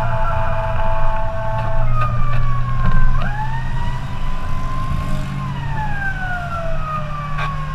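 Emergency siren on a fire-rescue vehicle under way, over the steady hum of its engine and tyres. A steady multi-tone sound switches about two seconds in to a wailing sweep that jumps up quickly and then falls slowly, twice.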